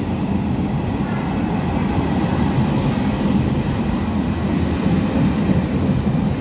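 Taiwan Railways Chu-Kuang express passenger coaches rolling past close by at a platform: a loud, steady low rumble of steel wheels on the rails.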